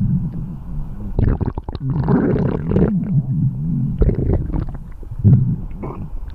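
Human stomach growling loudly and without a break: low, wavering gurgling growls that slide up and down in pitch, broken by irregular bubbling squelches.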